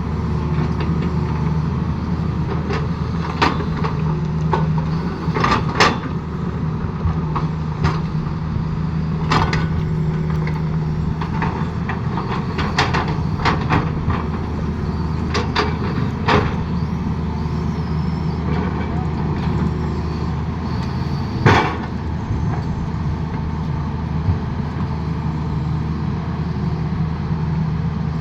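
Excavator's diesel engine running steadily under load, with irregular sharp clanks and knocks scattered over it. The loudest clank comes about two-thirds of the way through.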